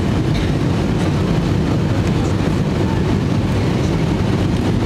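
Airliner jet engines at takeoff power during the takeoff roll, heard from inside the cabin: a loud, steady rumble, heavy in the low end.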